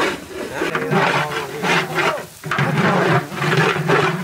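A long metal ladle stirring and scraping a thick spinach-and-fish mash around a large aluminium cooking pot, with people talking in the background.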